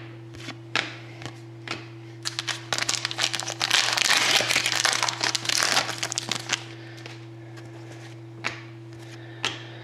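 Foil wrapper of a 2013-14 Upper Deck SPx hockey card pack being torn open and crinkled, in a dense spell from about two to six and a half seconds in. Before and after it come scattered sharp clicks of the cards being handled, over a steady low hum.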